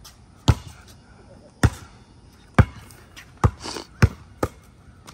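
A basketball bouncing on a concrete pad: six sharp bounces, the gaps between them shortening from about a second to under half a second.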